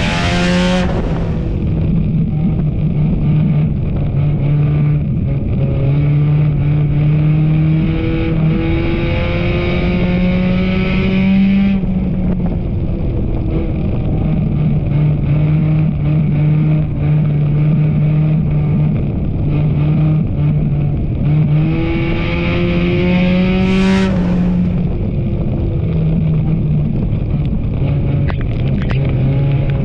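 Enduro race car engine running hard on a speedway oval, its pitch climbing steadily and then dropping twice as the throttle comes off, with a brief rushing burst of noise about twenty-four seconds in.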